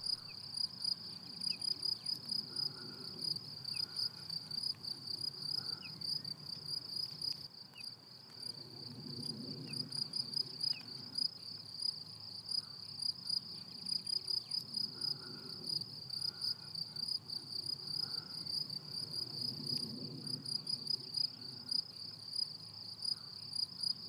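Meadow insects stridulating: a steady, high-pitched chirring that pulses about two to three times a second, with no break.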